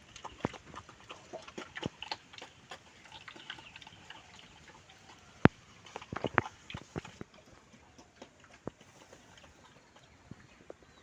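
Pigs in a farm pen: scattered clicks and knocks with a faint hiss beneath, the loudest a single sharp knock about five and a half seconds in, followed by a few more just after six seconds.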